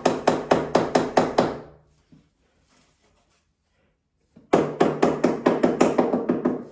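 Rapid hammer blows on a timber wall stud, about four to five a second, in two runs: the first stops about a second and a half in, and a second run starts about four and a half seconds in.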